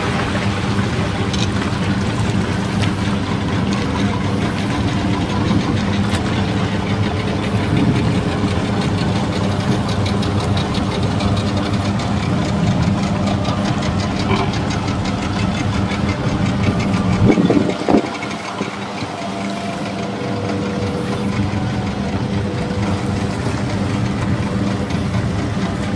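A boat engine running steadily with a low hum. About 17 seconds in it swells briefly, and after that the deepest rumble falls away.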